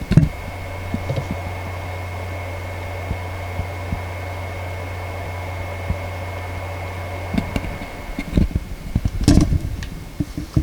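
Seagate Backup Plus 8 TB (ST8000DM004) external hard drive running with a steady low hum and a faint high whine, with a few scattered faint ticks. The hum stops about seven and a half seconds in, and a cluster of louder clicks follows near the end.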